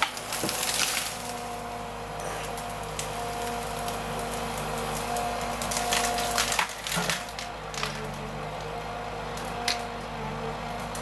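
A tree crashing to the ground with branches snapping in the first second, after a forestry harvester has sawn it through. The harvester's diesel engine then runs steadily under scattered cracks and snaps of wood and branches, loudest about six to seven seconds in.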